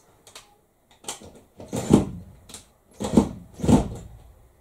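Cordless drill run in several short bursts, driving a screw into the top of a window frame.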